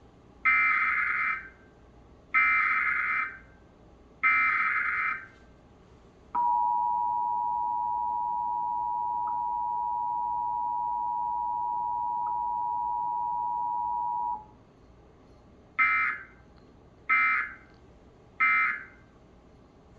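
Emergency Alert System broadcast tones for a Local Area Emergency alert. Three SAME header data bursts, each about a second long, are followed by the two-tone attention signal, held steady for about eight seconds. The alert closes with three short end-of-message data bursts.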